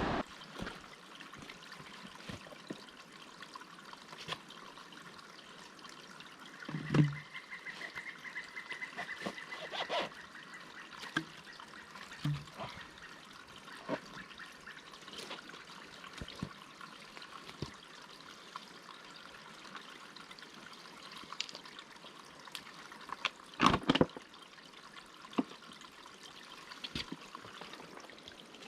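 Small stream of water trickling, with scattered knocks and clicks, the loudest about 7 seconds in and twice near 24 seconds.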